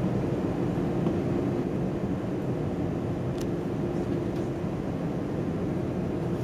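Cabin noise of an Airbus A320-200 taxiing: a steady engine hum with a constant low tone, unchanging in level.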